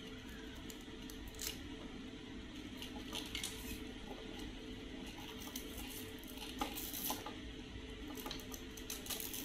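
Hands handling small parts and plastic packaging: scattered light clicks, taps and crinkles over a steady low hum.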